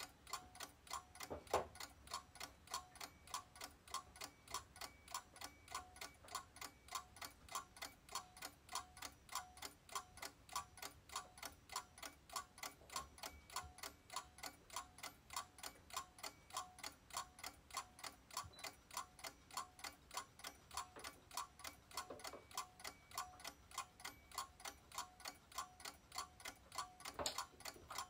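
Darkroom timer ticking in a rapid, even rhythm, with a couple of soft knocks as a print is handled in a tray, the loudest near the end.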